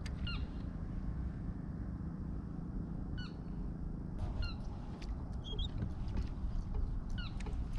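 About five short bird calls, each a brief note that hooks down in pitch, spaced a second or more apart, over a steady low rumble.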